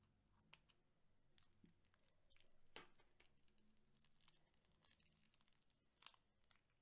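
Faint clicks and crackles from clear slime and plastic piping bags being handled, with three sharper clicks: about half a second in, near three seconds, and about six seconds in.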